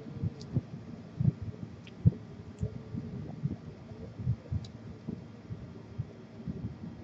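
Irregular dull low thumps, several a second, with four faint short high chirps scattered among them.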